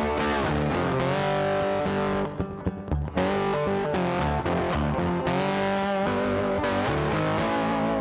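Background music: a rock track with distorted electric guitar and bass, with a short break about two and a half seconds in.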